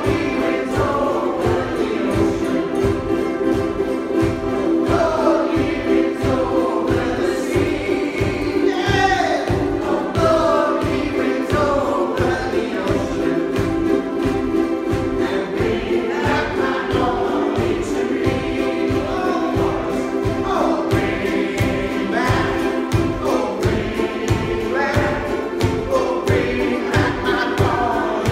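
A ukulele band strumming many ukuleles together on a steady, driving rock beat, with a group of voices singing along.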